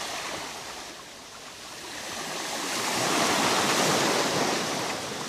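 Rushing wash of surf-like water noise that swells to its loudest about three seconds in and then slowly eases.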